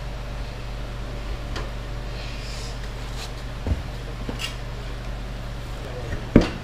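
A riding mower's rear wheel being worked onto its axle by hand: scuffs and light knocks, then one sharp knock near the end, the loudest sound. A steady low hum runs underneath.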